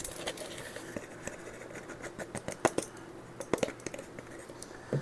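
Metal measuring spoon scooping baking powder from its container: faint, scattered small clicks and scrapes, a few more in the middle seconds.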